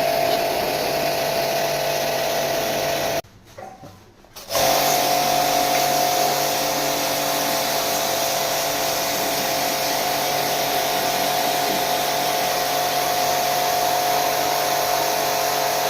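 Electric jet pump washer for cleaning air conditioners, running with a steady whine over a hiss. It cuts out about three seconds in, starts again a second or so later, and stops near the end.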